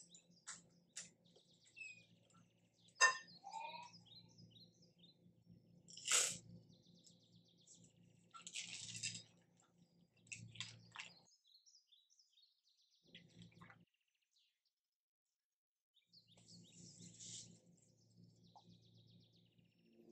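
Wire whisk working thick chocolate batter in a glass bowl: irregular sharp clinks of the whisk against the glass, brief scraping, and small high squeaks, with a pause in the middle.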